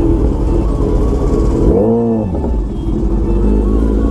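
Kawasaki Z900 inline-four motorcycle engine running in slow traffic, with a quick throttle blip about two seconds in, its pitch rising and falling back.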